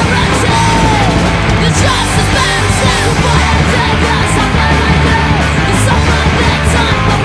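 Crust punk song playing loud: a dense wall of band sound with shouted, yelled vocals.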